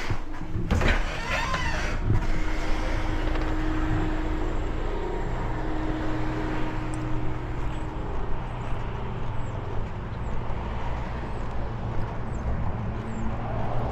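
Car running, with a steady engine and road-noise rumble throughout.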